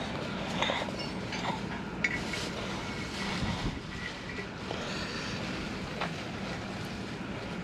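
Faint metal clicks and scrapes from a pick tool working a small oiled ring into its seat in an aluminium transmission front cover, over a steady low hum.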